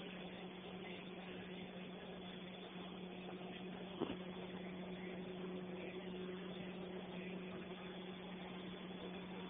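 A heater running: a steady low hum over a constant hiss, with a single sharp knock about four seconds in.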